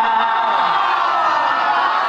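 Crowd of many voices cheering and shouting together, overlapping into a steady loud din.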